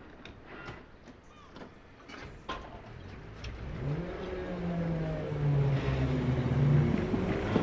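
Ex-1938 London Underground tube stock train (Island Line class 483) approaching, a few sharp clicks in the first three seconds, then its traction motors whining: the whine rises in pitch about four seconds in, then holds steady and grows louder as the train draws near.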